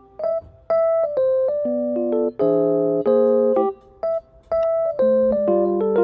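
Background music: a light tune of chords and short melody notes.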